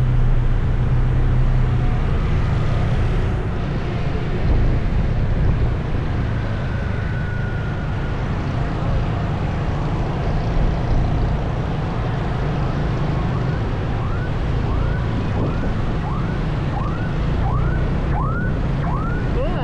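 An emergency vehicle siren yelping in quick repeated sweeps, about three every two seconds, coming in about two-thirds of the way through and growing louder. Underneath is a steady rumble of road traffic.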